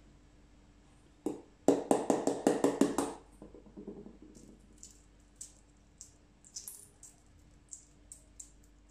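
Eggshell of a cooked, ice-chilled egg being cracked: a single tap, then a quick run of sharp cracks and crunches lasting about a second and a half, followed by small scattered crackles as bits of shell are peeled away.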